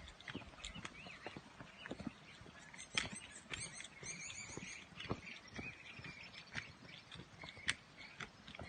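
Irregular knocks and crunches of steps on a stony trail, with small birds chirping throughout and a quick trill about three and a half seconds in.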